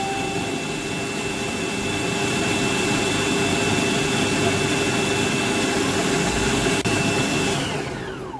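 Electric food processor running at full speed, grinding peanuts with a little oil and honey into peanut butter: a steady motor whine that winds down with a falling pitch near the end as it is switched off.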